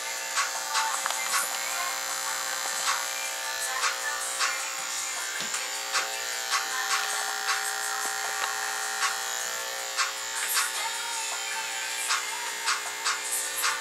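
Electric hair clippers with a comb guard running steadily against a client's hair, a constant motor buzz broken by many short, sharp clicks.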